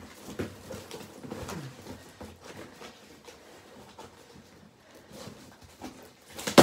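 Cardboard box and packing being handled and opened by hand: rustling, scraping and small scattered clicks, with one sharp snap near the end.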